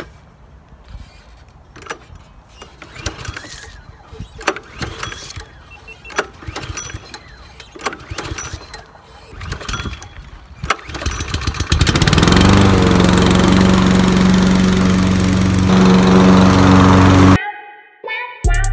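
Gas lawn mower being pull-started: a series of recoil-starter cord pulls, one every second or two, before the engine catches about twelve seconds in, revs up and runs steadily. The engine sound stops abruptly near the end.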